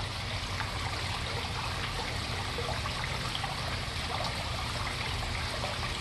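Steady trickle of running water, an even, unbroken splashing.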